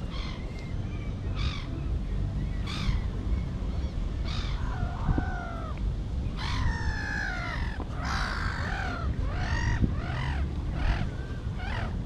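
Wild birds calling again and again with short harsh calls, roughly one a second, and two longer calls that fall in pitch near the middle.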